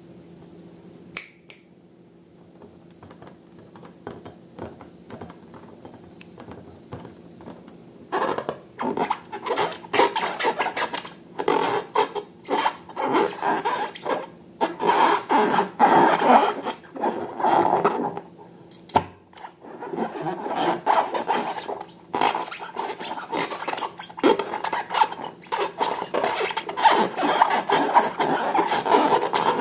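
Slime being worked by hand or with a tool: dense runs of rubbing and scraping strokes that start about eight seconds in, after a quieter stretch with a faint steady hum.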